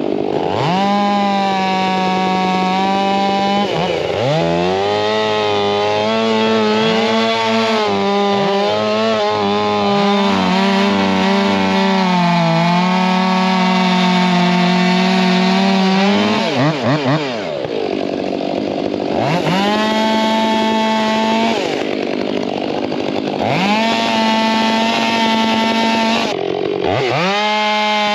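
Two-stroke chainsaw at full throttle cutting firewood. It revs up sharply about a second in, and its pitch sags and wavers under load through a long cut. It then drops back to idle and is revved up again three more times.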